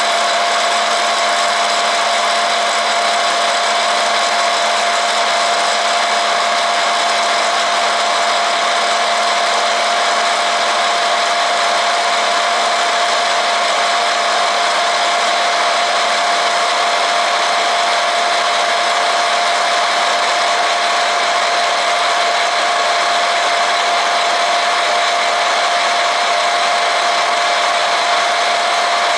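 Mini electric hot-air popcorn machine running, its blower fan giving a steady whir with a constant humming tone. The kernels are still heating and have not begun to pop.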